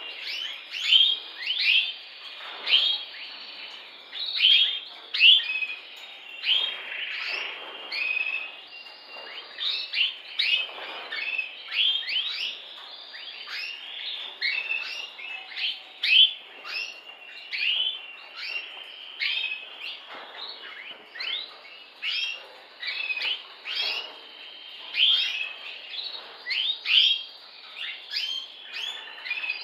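Red mosaic canary singing: a long, unbroken run of sharp falling chirps and quick trills, with a few held whistled notes.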